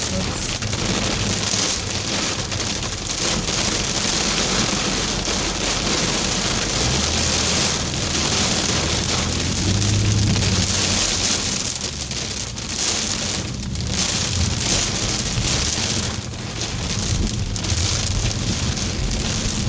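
Steady rain falling on a moving car's windshield and roof, with low road rumble underneath, heard from inside the car.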